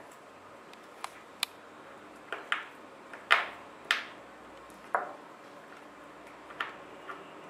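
Small metal repair tools, a precision screwdriver at work on a tiny screw, clicking and tapping against the iPhone 4's metal internals as the screw is undone. About nine light, sharp clicks come at uneven intervals, the loudest about three seconds in.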